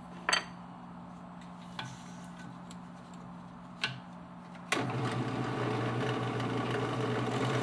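A few sharp wooden knocks and clicks as work pieces are handled, then a bench power tool switches on a little after halfway through and runs steadily.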